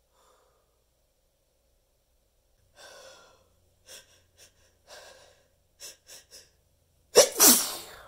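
A person's sneeze buildup: a string of short, catching breaths, then one loud sneeze near the end, its voice falling in pitch.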